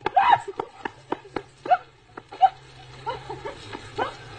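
A dog barking in short, sharp yaps, roughly one or two a second, mixed with a few sharp clicks, over a low steady hum that comes in about a second in.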